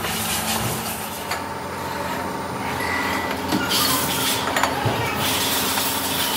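Kausar multi-spindle drill press running with a steady drone, drilling bolt holes in a cast-aluminium motorcycle hub flange. A few light metallic clinks come about three and a half to five seconds in as the hubs are handled on the machine table.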